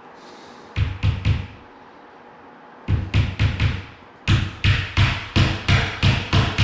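Hammer tapping small nails into the back panel of an IKEA sink base cabinet. A group of three strikes about a second in and four more near three seconds are followed by a steady run of about three strikes a second.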